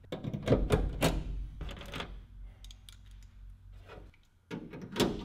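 Aluminium door-sill strip being set back into a riveted aluminium airframe by hand: a run of light metal knocks and clatters, bunched in the first two seconds and again near the end.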